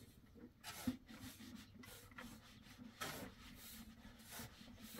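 Faint rustling and scraping, a few short swishes about a second in and again between three and four and a half seconds in.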